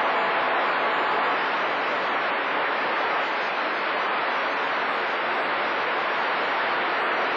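CB radio receiver on channel 28 giving a steady hiss of band static, with no station coming through between transmissions.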